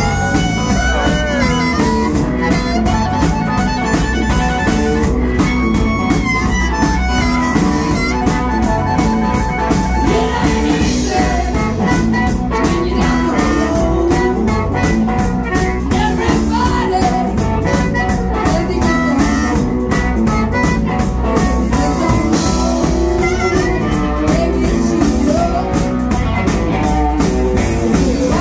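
A live blues band playing: electric guitar, electric bass and drum kit with amplified harmonica, and a woman singing.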